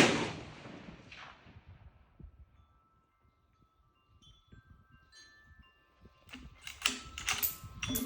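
A single shot from a custom .308 rifle with a 16-inch barrel at the very start, its report dying away with a fainter crack about a second later. After a few near-quiet seconds, a run of sharp mechanical clicks and clatter starts about six seconds in.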